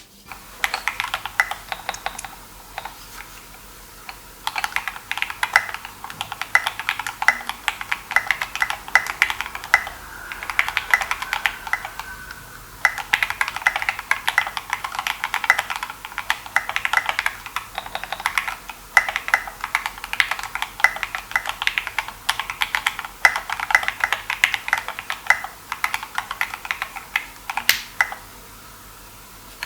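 Rapid, continuous typing on a Think6.5 v2 mechanical keyboard, its switches and keycaps now mounted on a newly fitted hotswap PCB: a typing sound test of the rebuilt board, with brief pauses about twelve seconds in and near the end.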